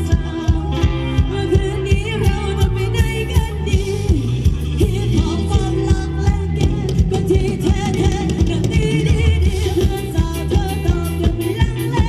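Live band playing Thai ramwong dance music with a steady beat and a singer's voice over it.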